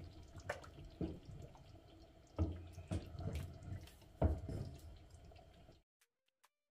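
Wooden spoon stirring thick tomato stew in a large stainless steel pot: wet sloshing and squelching, with the spoon knocking against the pot several times, loudest about two and a half and four seconds in. The sound cuts off suddenly near the end.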